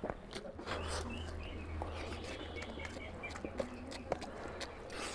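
A bare hand mixing rice into oily mutton fat curry on a steel plate, making many small wet clicks, with birds chirping faintly in the background.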